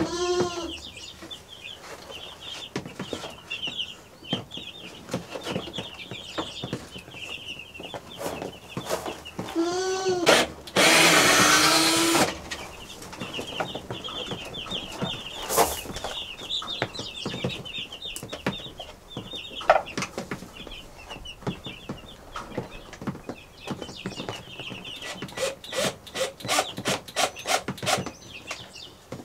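Week-old meat chicks peeping constantly in high chirps. A power drill runs in short pulses near the start and about ten seconds in, then for about a second at about eleven seconds in, loudest of all, as a screw is driven. A run of sharp knocks and clicks follows near the end.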